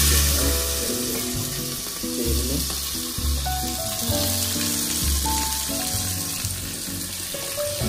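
Sliced onions sizzling in hot groundnut oil in an aluminium pressure cooker, a steady frying hiss. Background music plays underneath.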